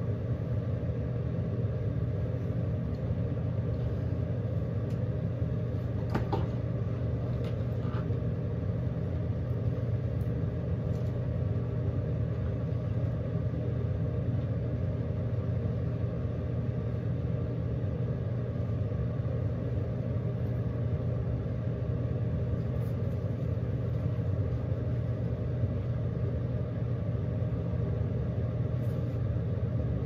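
Steady low mechanical hum that does not change throughout, with a couple of faint clicks about six and eight seconds in.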